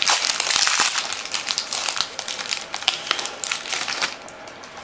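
Wrapper of a football trading-card pack crinkling and crackling as it is torn open by hand. The crinkling is loudest over the first two seconds and dies away about four seconds in.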